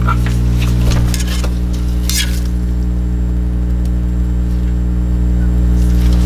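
A steady low hum, with scattered light clicks and taps of tools and small parts being handled on a silicone work mat, and a brief hiss about two seconds in.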